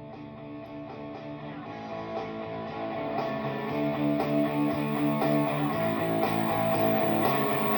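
A looped guitar phrase playing through a home-built guitar amplifier with reverb, growing steadily louder as the amp's volume is turned up.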